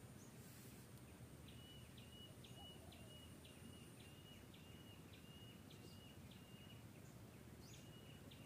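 Faint outdoor ambience with a bird repeating a short, high call about twice a second, starting about a second and a half in, pausing, then starting again near the end.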